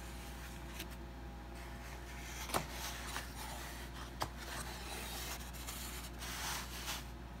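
Cardboard egg cartons being handled: pulp card rubbing and scraping as one carton is closed and another is opened, with two light taps about two and four seconds in.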